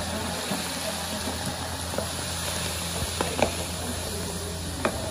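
Water poured from a large metal jug into a big pot of coarse rice, then a ladle stirring the wet rice, with a few light knocks of the ladle against the pot.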